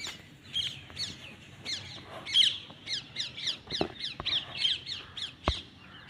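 Several rose-ringed parakeets screeching: a steady run of short, shrill, downward-sliding calls, about three a second and overlapping. A couple of sharp knocks come through, around two-thirds of the way in and near the end.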